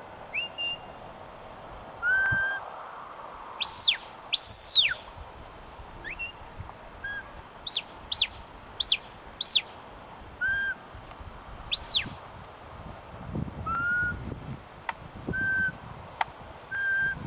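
Handler's whistle commands to a working Border Collie sheepdog: a string of short, sharp whistles, some held on one note and some swooping up and down, with a quick run of four swoops about eight seconds in.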